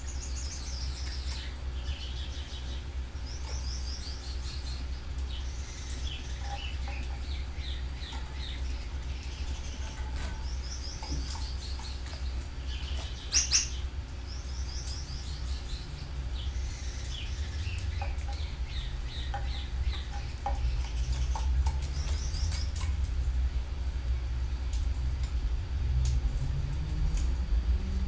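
Canaries chirping and trilling in short, repeated high phrases, over a steady low rumble. One sharp click about halfway through.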